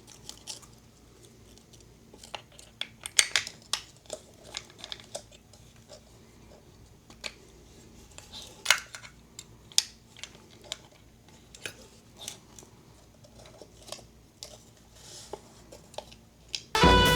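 Scattered small clicks and taps of hands handling a Pentax K1000 camera and a 35 mm film cartridge while loading film. Music starts suddenly near the end.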